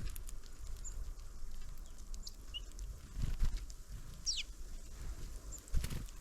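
Small birds at a feeder: a few short high chirps and one call sliding downward about four seconds in, with a few sharp knocks, over a low rumble.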